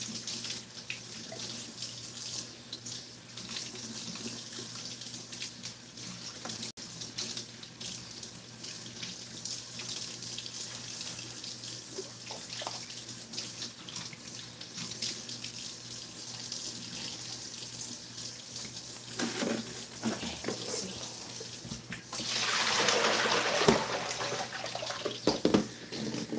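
Kitchen faucet running into a sink while mustard green leaves are rinsed under it by hand, the water splashing steadily. The splashing grows louder for a few seconds near the end.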